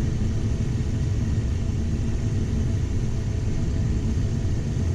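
Steady rumble inside a Cessna Citation XL's cockpit in flight on approach: airflow noise and turbofan engine drone, with a few faint steady tones above it.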